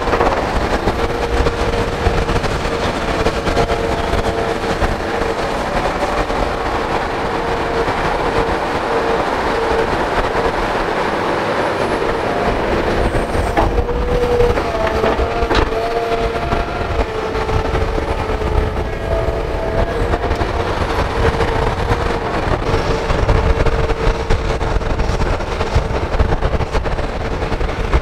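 Hitachi Zaxis hydraulic excavator's diesel engine running under load while digging, with a steady high hydraulic whine over the engine rumble and a couple of short knocks about halfway through.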